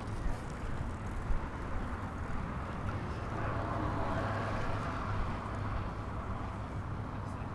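Outdoor city street ambience: a steady low traffic rumble, with a passing vehicle that swells and fades about four to five seconds in.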